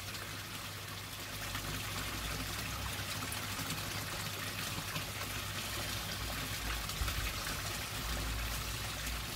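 Steady splashing trickle of water pouring from the pond filter's return outlets into the koi pond, with low rumbling now and then.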